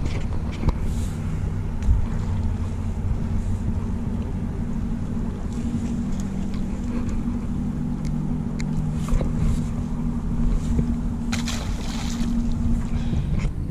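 An engine drones steadily, its pitch shifting about halfway through. Two sharp knocks come in the first two seconds, and a splash comes near the end as the fluke is dropped back into the water.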